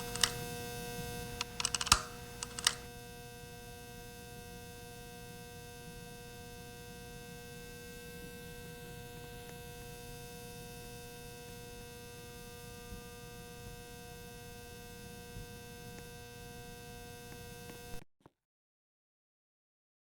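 Ceiling fan running with a steady, loud humming noise made of several fixed pitches, with a few sharp clicks in the first three seconds; the sound cuts off suddenly near the end.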